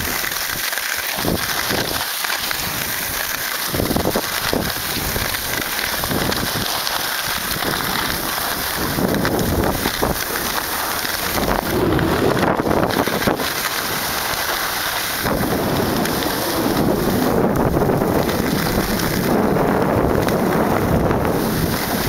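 Skis sliding and scraping over snow on a fast downhill run, with wind noise on the microphone: a steady rushing noise that grows louder and rougher around the middle and again through the last third.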